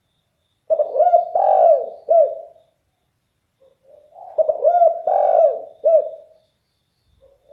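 Spotted dove (derkuku) cooing in a deep, loud voice: two multi-note coo phrases, each about two seconds long, with a pause of about a second between them, and a third just starting at the end.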